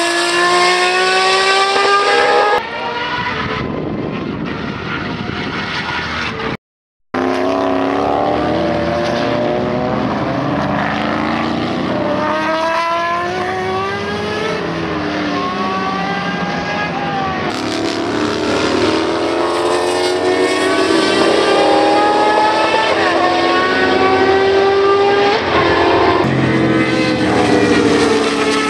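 Matra 670 race cars' V12 engines running hard past the track, the high engine note climbing in pitch as they accelerate and dropping as they lift off and go by. The sound breaks off for a moment about seven seconds in.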